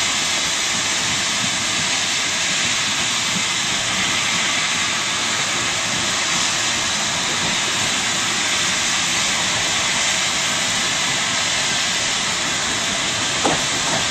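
A steady, loud hiss with no rhythm or change in level. It begins abruptly and holds unchanged throughout.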